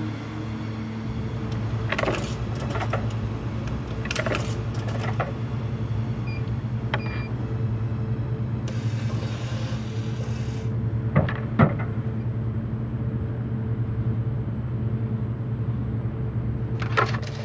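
Snack vending machine humming steadily. A few clicks are followed by two short keypad beeps, then the dispensing motor whirs for about two seconds and an item drops into the tray with two knocks.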